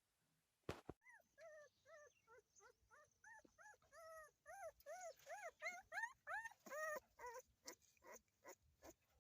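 Puppies whimpering and yelping: a rapid run of short, high cries, each rising and falling, about two or three a second, starting about a second in after a single sharp knock.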